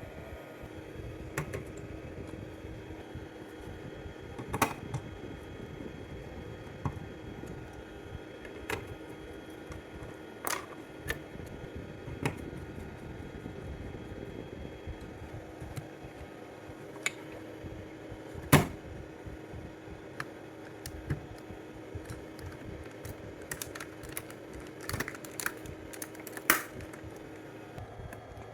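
Irregular sharp clicks and taps, a few louder knocks among them, the loudest about two thirds of the way through, over a steady low hum and faint hiss; the hum stops near the end.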